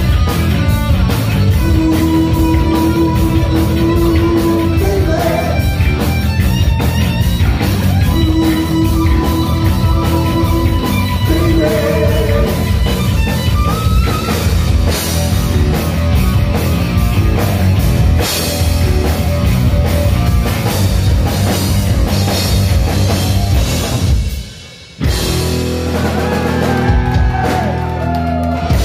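Heavy metal band playing live: electric guitar lead with long held notes over loud drums and bass. About four seconds from the end the sound drops sharply for under a second, then the band comes back in with sliding guitar notes.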